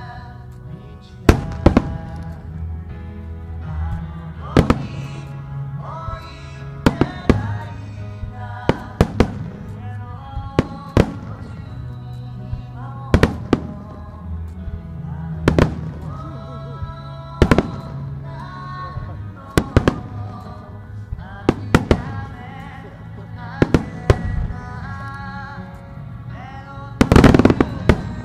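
Aerial firework shells bursting with sharp bangs about every one to two seconds, over music playing along with the show. Near the end a dense cluster of bursts comes together as a shell and a row of ground fountains fire.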